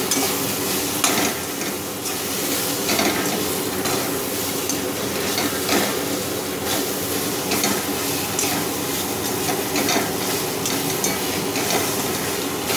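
Pumpkin cubes sizzling in hot oil in a metal kadai while a metal spatula stirs them, scraping the pan about once a second. The ground spices have just been added and are being fried with the pumpkin.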